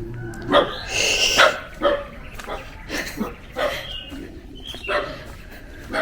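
Dog barking repeatedly, about seven short barks, the loudest about a second in.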